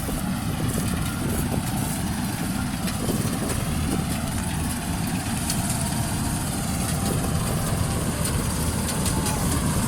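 Combine harvester engine running steadily while it cuts rice, a continuous low drone.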